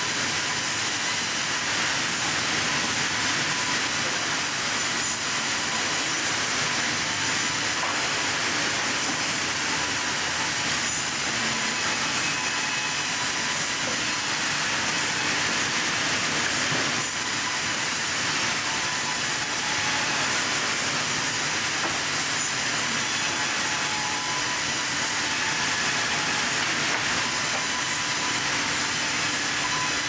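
Industrial band saw running steadily through a wooden slab, giving an even, unbroken hiss of blade and wood.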